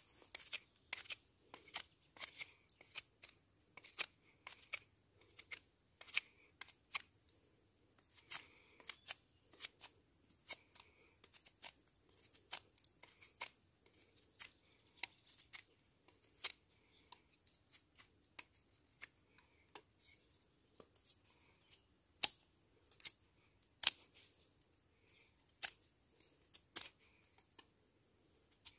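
Knife carving a wooden spoon blank: an irregular series of short clicking cuts into the wood, about one or two a second.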